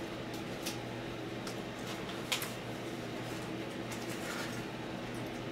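Trading cards, plastic card holders and paper envelopes being handled: a few light clicks and taps, the sharpest about two seconds in, and a soft rustle near the end, over a steady low hum.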